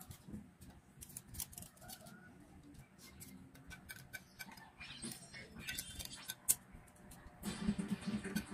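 Scallop half-shells clicking and scraping on a ceramic plate as they are set down one by one, in light irregular clicks. Near the end a louder, low pitched sound comes in.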